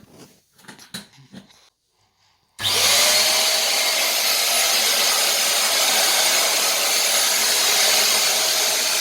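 Kitfort KT-509 upright vacuum cleaner switched on about two and a half seconds in, after a few soft handling clicks, then running steadily with a loud, even whine as it vacuums a carpet.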